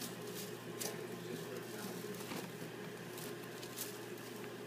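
Scattered short rustles and light taps, about six or seven, as a kitten pounces on and wrestles a feather wand toy on a terry towel, over a steady low background hum.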